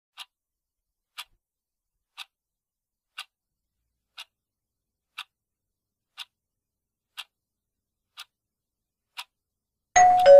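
Quiz countdown timer ticking once a second, ten ticks in all, then a short, loud electronic tone as the timer reaches zero, stepping down from a higher note to a lower one.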